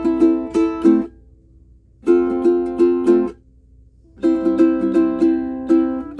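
Pono prototype pineapple ukulele in curly spalted mango, strung with a wound low G, strummed in three short bursts of quick chords with brief silent gaps between them.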